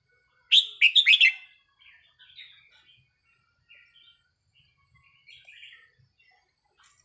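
Red-whiskered bulbul singing: a loud burst of quick whistled notes about half a second in, followed by softer, scattered chirping phrases.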